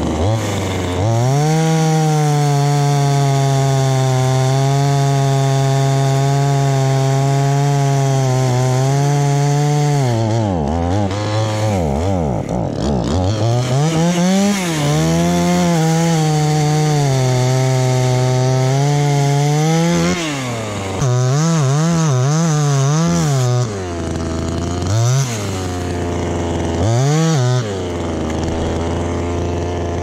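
Two-stroke chainsaw cutting through a tree trunk at full throttle, dropping back about ten seconds in and then cutting again. After that it mostly idles, with a quick run of short throttle blips and then two more single revs near the end.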